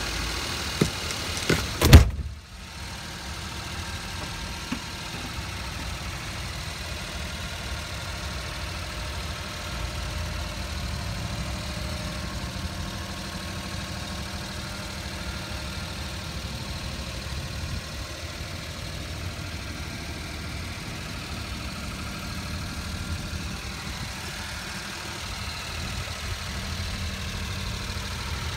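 Daihatsu Hijet kei truck's small three-cylinder engine idling steadily. A couple of knocks and one loud bang come about two seconds in.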